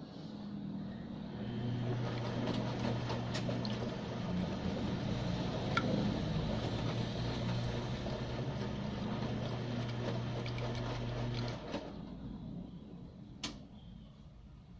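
Washing machine in its wash cycle: the motor hums as the drum turns, with water sloshing. It stops about twelve seconds in, and a single click follows.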